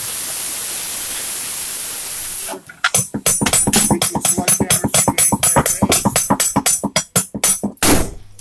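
Handheld circular saw running steadily in a wooden stair tread, then cutting out about two and a half seconds in. After that come rapid hammer blows on the cut tread, several a second, knocking it apart.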